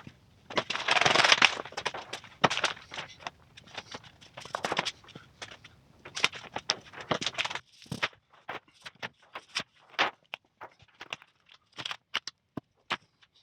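Sheet of clear plastic patterning film crackling and rustling as it is handled and smoothed over the frame, with a dense crinkle about a second in and scattered sharp clicks and taps, sparser in the second half.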